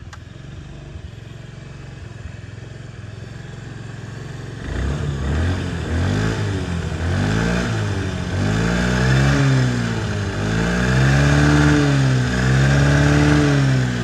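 Honda AF56 Dio scooter's four-stroke water-cooled single-cylinder engine, just after a kick start, idling steadily. From about five seconds in it is revved up and let fall back several times. It shows the tappet and bearing-type noises typical of these Honda engines.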